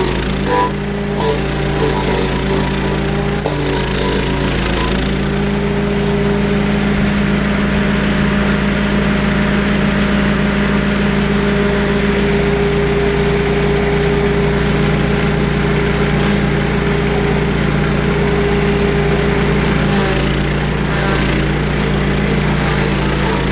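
Stump grinder's engine running steadily at speed while its cutter wheel grinds into a tree stump.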